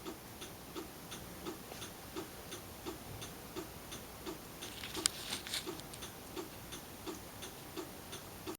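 Car turn-signal flasher clicking steadily, about one and a half ticks a second, with the directional left on. About five seconds in there is a brief louder clatter.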